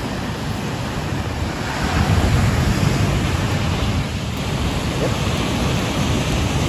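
Ocean surf washing on a beach in a steady rush that swells a little about two seconds in, with wind noise on the microphone.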